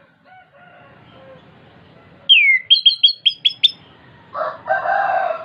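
Chestnut-capped thrush (anis kembang) singing. Soft whistled notes lead into a loud down-slurred whistle, then a quick run of about six sharp, high notes. Near the end a lower, harsher call follows.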